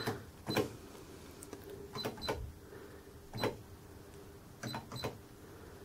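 Keys pressed one at a time on a Sharp XE-A207B cash register's keypad, about six presses spread unevenly, each a short click with a brief high beep, as letters of a product name are entered.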